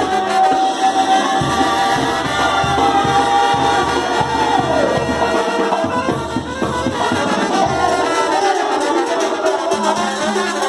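Upbeat party music led by brass horns over a steady drum beat. A long held horn note slides down about four seconds in.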